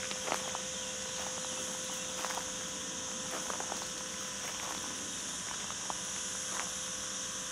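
Outdoor ambience: a steady high hiss and a faint steady hum, with scattered light clicks.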